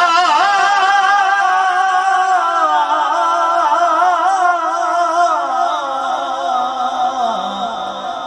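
A man sings one long, ornamented melismatic phrase of a manqabat on a held vowel. The pitch wavers through turns and sinks lower toward the end.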